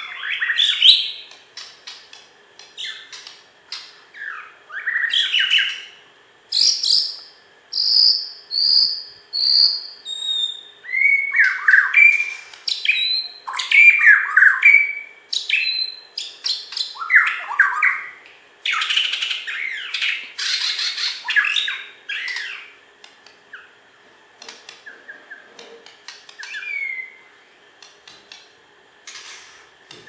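White-rumped shama (Bornean murai batu) singing a varied, loud song in separate phrases: clear whistles, fast trills and harsh chattering notes with short pauses between. A run of about four high whistled notes comes about eight seconds in, and a dense harsh chattering stretch comes near the two-thirds mark.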